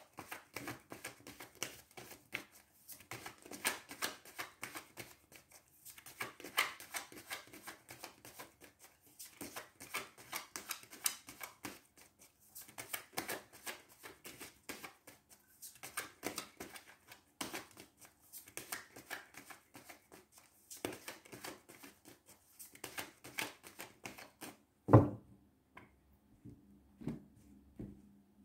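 A deck of tarot cards being shuffled by hand: quick runs of flicking, slapping card clicks in bursts with short pauses between. One louder thump near the end.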